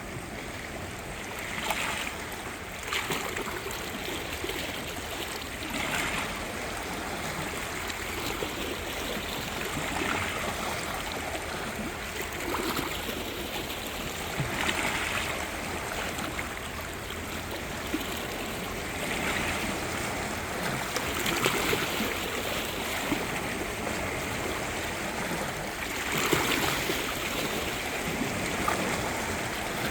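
Small sea waves washing onto the shore, a steady rush of water with a fresh surge every few seconds.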